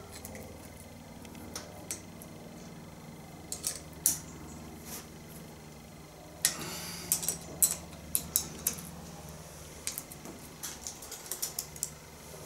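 Spanner and steel hedge trimmer cutter blade clinking and clicking as the blade's bolts are worked by hand: scattered sharp metallic clicks, a few at first, then busier runs from about six seconds in and again near the end.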